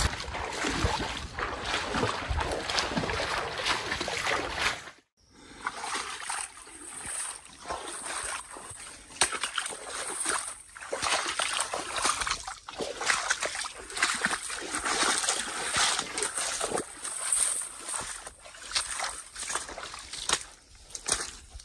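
A hiker's footsteps: first brushing through dry prairie grass, then, after a cut about five seconds in, uneven steps with splashing and sloshing through shallow swamp water on a forest path.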